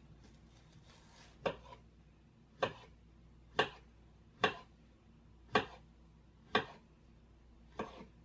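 Kitchen knife slicing a peeled banana on a wooden cutting board: seven crisp knocks of the blade meeting the board, about one a second.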